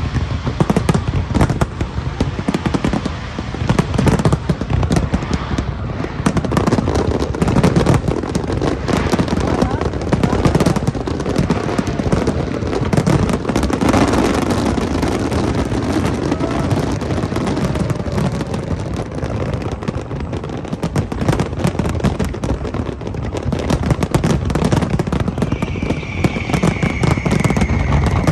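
Large fireworks display: aerial shells bursting in a rapid, unbroken barrage of bangs and crackling. A high whistle sounds briefly near the end.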